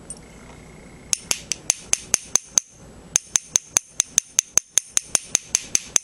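Ball end of a glass cutter tapping a scored sheet of fusing glass, about five quick, sharp, ringing taps a second, to run the break along the score line. There is one short run of taps, a brief pause, and then a longer run.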